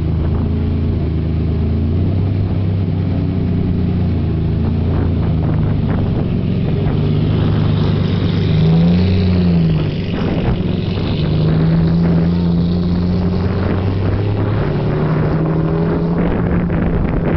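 Lamborghini Diablo SV's V12 engine running at low revs as the car pulls away slowly, with one short rev about nine seconds in that rises and falls back.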